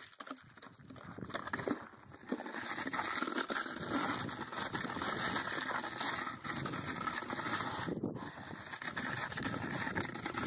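Upturned plastic dog bowl being nosed and scraped across gravel by a dog, with its paws crunching on the stones: a crackly, clicking scrape that builds up about two seconds in and breaks off briefly around eight seconds in.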